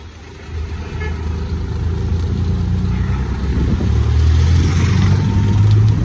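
Auto-rickshaw engine running as it drives, with road noise, growing steadily louder over the last few seconds.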